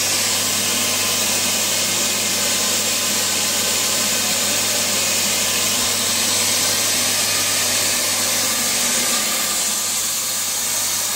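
Steady hiss with a constant low electrical hum from laboratory plasma equipment running while the helicon source is lit.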